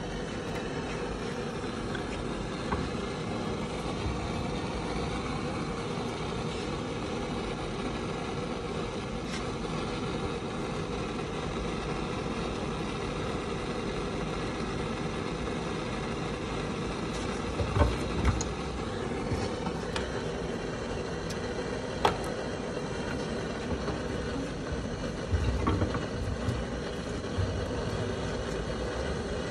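Steady idling engine hum, with a few knocks and clunks from the hose being worked in a metal bench vise, a couple just past halfway and a cluster near the end.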